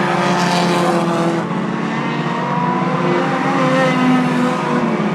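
Pack of four-cylinder short-track race cars running at speed, several engines heard together at different pitches that drift up and down as they lap.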